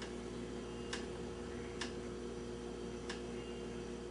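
Steady low electrical hum of room tone, with three light clicks, the first about a second in, as the painted brass radio bezel is handled.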